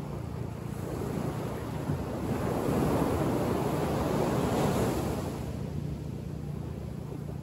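Surf on a sandy beach: a wave breaks and washes up the shore, swelling about two seconds in, loudest for a couple of seconds, then fading as it runs out.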